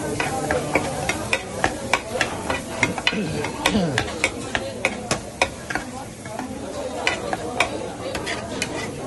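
Rice frying and sizzling on a large round steel dakgalbi griddle pan while a big metal scoop scrapes and presses it against the pan, giving quick metallic scraping clicks several times a second.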